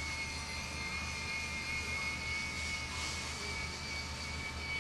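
A steady mechanical hum with two constant high-pitched whining tones.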